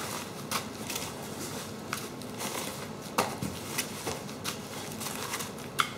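Plastic-wrapped parts crinkling and rustling as they are handled, lifted out of a cardboard box and set down on a workbench, with scattered light clicks and knocks; a sharper knock comes about three seconds in.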